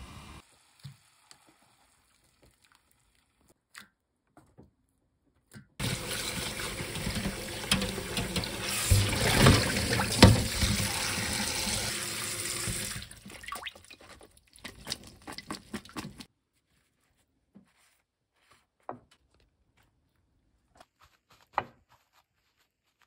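Kitchen tap water running onto blanched Korean angelica tree shoots in a stainless mesh strainer in a sink. It starts about six seconds in, runs steadily for about seven seconds, then breaks into uneven splashes that stop a few seconds later. The rest is mostly quiet, with a few faint soft sounds of handling.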